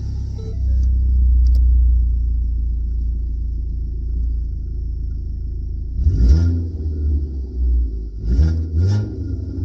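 Car engine idling steadily, then revved three times: once about six seconds in and twice in quick succession near the end. It runs evenly, sounding better after a repair for a cylinder-3 misfire code that had made it sound like a lawnmower.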